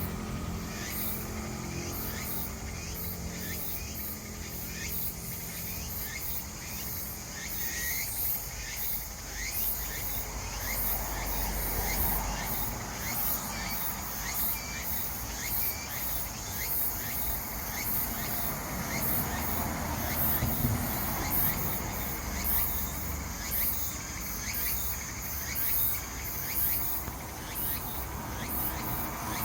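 Insects singing: a chorus of tsukutsukuboshi cicadas and matsumushi pine crickets, a steady, rapidly pulsing high-pitched song, with short falling chirps through the middle stretch.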